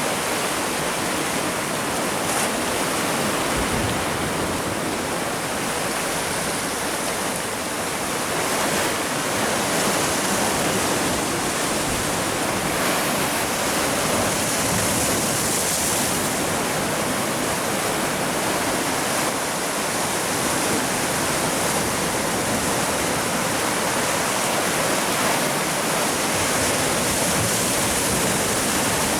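Sea surf washing on the shore, a steady rushing noise with no separate wave breaks standing out.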